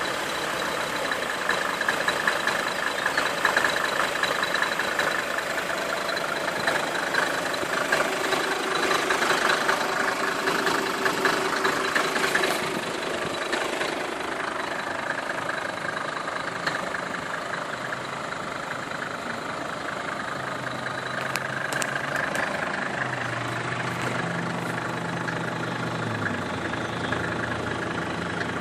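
Mercedes-Benz 250 GD Wolf's OM602 five-cylinder prechamber diesel idling steadily, a little quieter after about twelve seconds.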